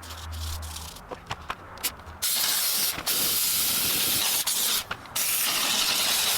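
Pressurised spray hissing loudly in long bursts, starting about two seconds in, with two brief breaks, after a quieter low hum and a few clicks.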